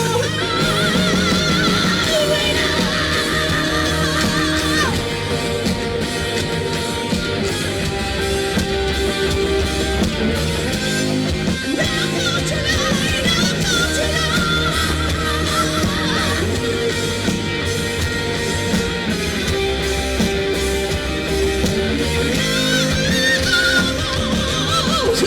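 Pop-rock music with guitar: a stretch of a Vietnamese song with no sung words.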